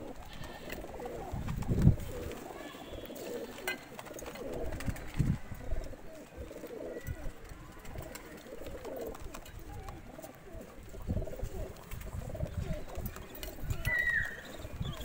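Flock of caged domestic pigeons cooing, a low rolling murmur from many birds at once. A short high falling call cuts in near the end.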